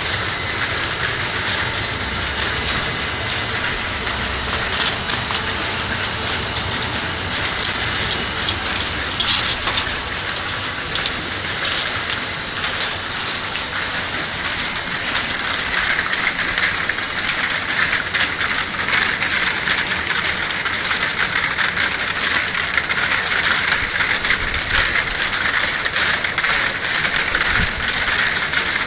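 External washing machine for 50 ml vials running: a steady hiss of its wash jets, with frequent small clicks and clinks of the vials. The hiss grows somewhat louder about halfway through.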